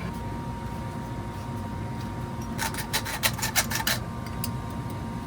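A quick run of rasping, scraping strokes on metal pipe, lasting about a second and a half just past the middle, as a pipe is cut down to shorten it. A steady low hum runs underneath.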